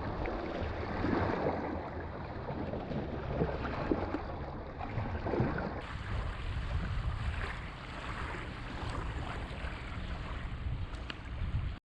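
Wind buffeting the microphone, a steady low rumble over the sound of water lapping at the shore, cutting out briefly at the very end.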